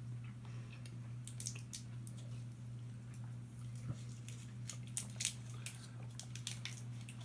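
Mouth chewing soft, chewy Starburst candy, with irregular wet clicks and lip smacks, over a steady low hum.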